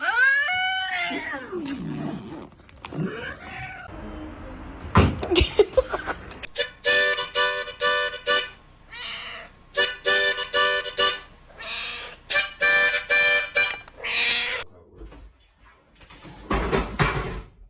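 A cat meowing, with a falling call in the first second, and other cat calls through the clip. Music with held chords comes in three short spells partway through.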